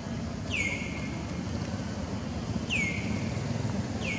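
Outdoor ambience: a steady low rumble of wind or distant traffic, and a short whistled call that falls in pitch and then holds briefly, repeated three times, like a bird calling.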